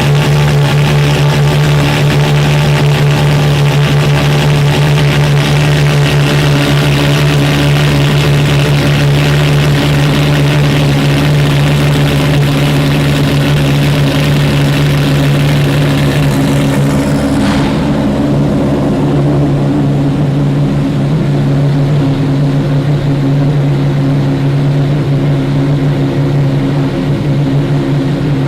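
Ferrari FXX's V12 engine running loud at a steady, unchanging speed. About two-thirds of the way through, the high hiss drops away while the low engine note carries on.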